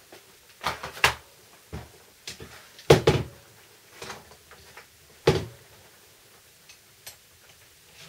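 Knocks and clicks of handling on a wooden workbench: a blister pack of blades put down, then a Bosch multi-tool and a small screwdriver picked up and handled. The knocks are separate, the loudest about three seconds in and another about five seconds in.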